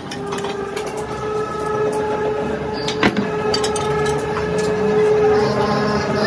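Steady hum of workshop machinery with several held tones, under scattered clacks and knocks, the sharpest about three seconds in.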